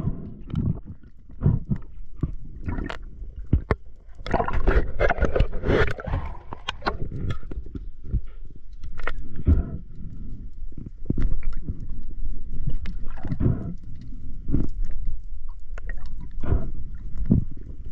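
Water sloshing and gurgling around a spearfisher's camera in irregular surges, with a longer stretch of bubbling about four to seven seconds in.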